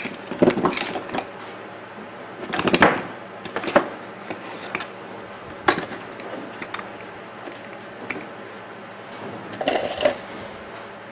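Parts of a coffee maker being handled during disassembly: scattered knocks, clicks and short rattles, in clusters about a second in and around three seconds (the loudest), single knocks after that, and another cluster near the end.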